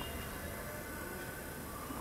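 Steady background room tone: a low hum under a faint even hiss, with no distinct event.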